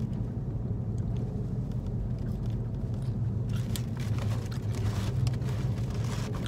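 Steady low rumble of road and engine noise inside a moving car's cabin, with a few faint clicks around the middle.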